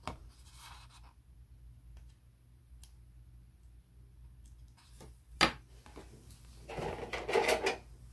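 Hobby knife scoring around a small sticker on a sticker sheet: faint scratches, then one sharp click about five seconds in. Near the end comes a louder stretch of the sheet rustling and flexing as it is handled.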